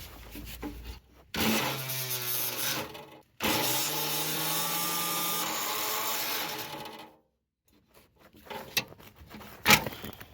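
Power tool cutting through rusted metal on a car's exhaust, running in two long stretches that start and stop abruptly, the pitch wavering a little as it bites. Scattered knocks and scraping of metal come before and after.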